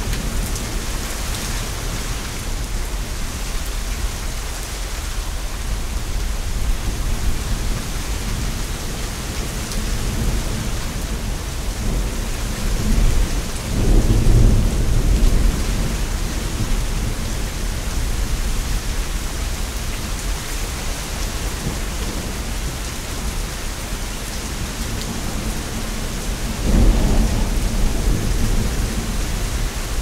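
Thunderstorm: steady rain falling, with thunder rumbling low throughout. The thunder swells louder twice, about halfway through and again near the end.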